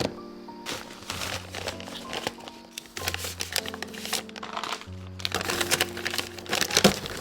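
Soft background music with a steady bass line, over close crinkling and light clicking of plastic being handled, busiest in the second half.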